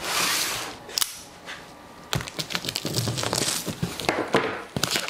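A cardboard box handled on a wooden workbench: a broad scrape as it is shifted, then a run of crinkling and crackling from packing tape and cardboard as the retaped carton is worked open.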